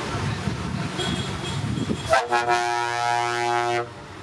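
Lorry engines running as a tractor unit pulls past, then a loud multi-tone air horn blast of about a second and a half, starting about two seconds in and cutting off sharply.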